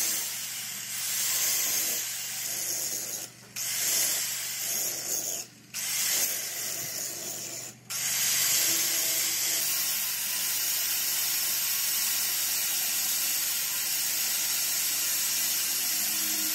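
Hand-held angle grinder grinding the steel teeth of a differential pinion gear: a harsh hiss of the disc on metal that cuts out briefly three times in the first half, then runs on steadily.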